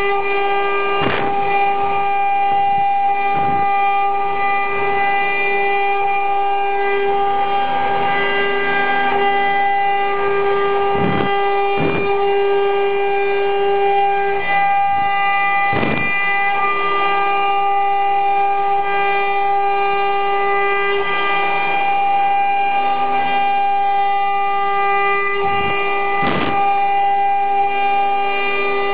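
Spindles of an eight-head CNC wood router running with a steady high-pitched whine as they carve wood, with a few short knocks along the way.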